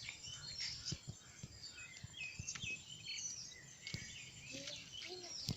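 Small birds chirping and calling in short, repeated notes over faint outdoor background noise, with a few soft knocks.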